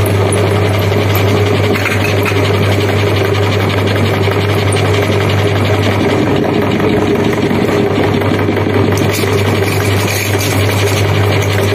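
Meat grinder running with a steady motor hum as it grinds crunchy ring chips and pushes the crumbs out through the plate.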